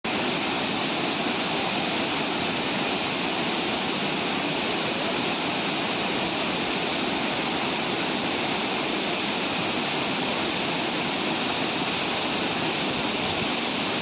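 Water pouring over a long, low concrete dam spillway and churning through white-water rapids below it: a steady, even rushing.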